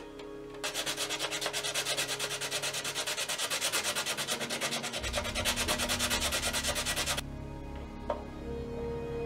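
Sanding pad rubbed quickly back and forth over a plastic model hull, a fast even run of rasping strokes that starts about half a second in and stops about seven seconds in, with background music underneath.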